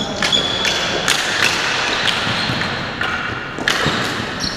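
Ball hockey play: irregular clacks and knocks of plastic-bladed sticks and the ball on a concrete arena floor.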